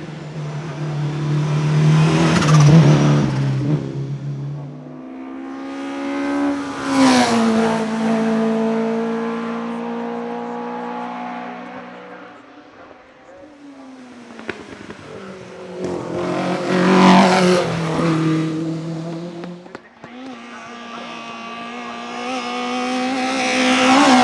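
Single-seater hillclimb race car engines at high revs, going by four times; each pass swells and fades, and on the second pass the note drops sharply as the car goes by.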